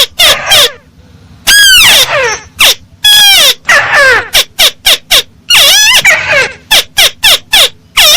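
Paddy-field crake calls: a loud, rapid series of short arching notes broken by a few longer, harsher calls that rise and then fall in pitch. This is a lure call used to attract the birds.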